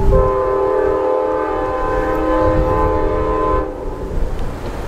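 Amtrak Genesis diesel locomotive's multi-chime air horn sounding one long chord as the passenger train approaches. The horn cuts off about three and a half seconds in, with one note trailing on briefly.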